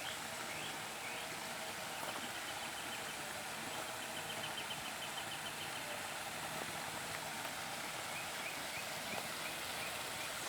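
Birds singing, with series of short high notes and fast trills, over a steady rush of flowing water.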